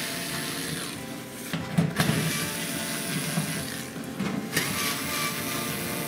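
Cordless drill-driver with a 7 mm socket running, backing the bolts out of a washing machine's rear panel, stopping and starting again twice.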